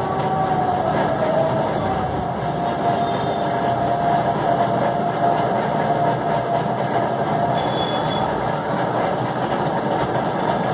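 Steady machine-like running noise, a continuous hum and rush, with a faint thin whistling tone over it that fades out about seven seconds in.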